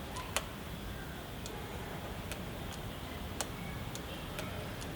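Faint, irregular clicks of the motorcycle's handlebar light switches being operated while the new headlight and bulbs are checked, over a steady low hum.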